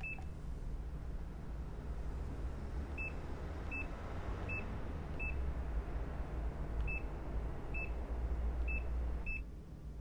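Digital door-lock keypad beeping as an eight-digit passcode is keyed in: a single beep at the start, then four key beeps, a short pause, and four more, over a low steady hum.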